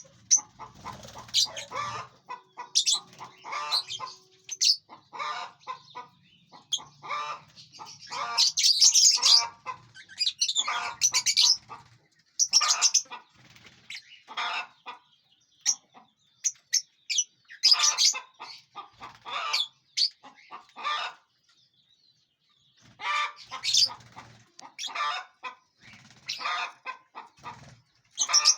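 A flock of lovebirds calling in many short bursts, some overlapping, with a couple of brief pauses.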